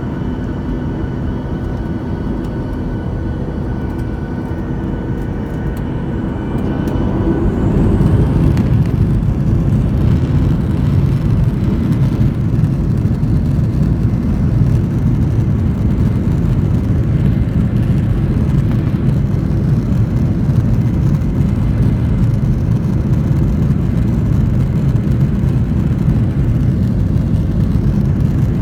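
Jet airliner engines on the takeoff run: a steady whine over a rumble, then about seven seconds in the engines spool up and the sound grows into a louder, steady low rumble that holds.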